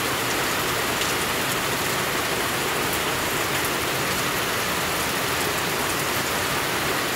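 Steady rain falling on a garden fish pond and wet stone paving: an even hiss with scattered drop ticks.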